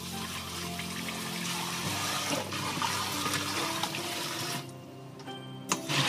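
Tap water running into a stainless steel bowl in a sink while hands rub and rinse raw chicken wings, splashing. The water stops about two-thirds of the way through, followed by a few sharp splashes as the wings are tipped into a mesh strainer to drain.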